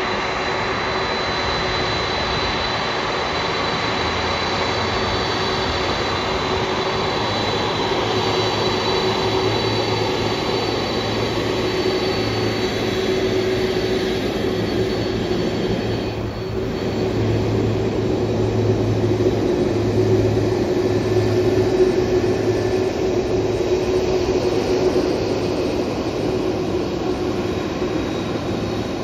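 Jet engines of a four-engine Boeing 747 freighter running at low taxi power as it rolls past, a steady high whine over a lower hum and rushing noise. It grows a little louder in the second half as the aircraft comes closer.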